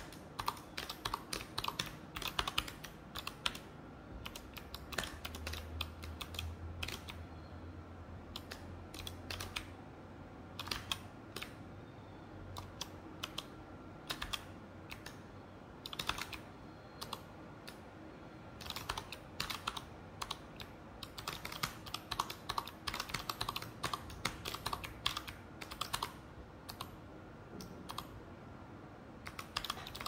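Typing on a mechanical keyboard: bursts of rapid key clicks with short lulls between them.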